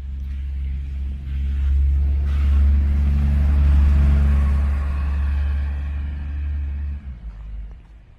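City bus driving past close by, its deep engine rumble swelling as it draws level and dropping away about seven seconds in, with a whine and tyre hiss on the wet road rising and falling through the middle.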